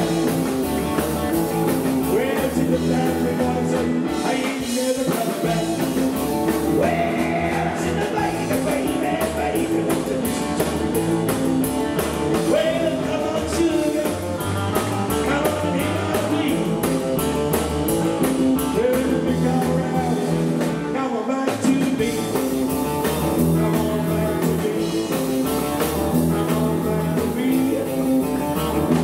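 A live rockabilly band playing: electric lead guitar, slapped double bass and drum kit with a male lead vocal. The bass and drums drop out briefly twice, around five and twenty-one seconds in.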